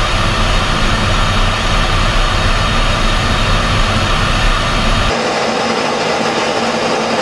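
Steady in-flight jet aircraft noise: a loud, even rushing sound over a deep rumble. About five seconds in it changes abruptly to a thinner rushing sound without the rumble.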